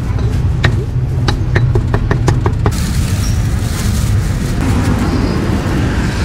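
Cleaver chopping roast pork on a thick wooden chopping block: quick, uneven knocks several a second over a steady low rumble of road traffic. About three seconds in the chopping stops and a plastic bag rustles for a couple of seconds, then only the traffic rumble is left.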